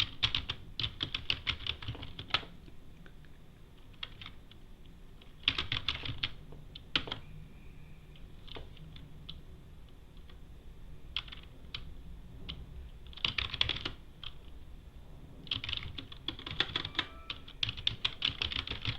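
Typing on a computer keyboard in several quick runs of keystrokes, with quieter pauses between them.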